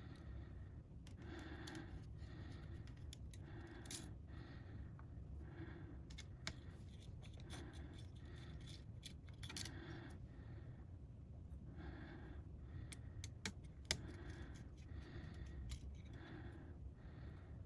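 Precision screwdriver working small screws on a MacBook Pro's logic board and heatsink: faint scraping about once a second with a few small sharp metal clicks, over a low steady hum.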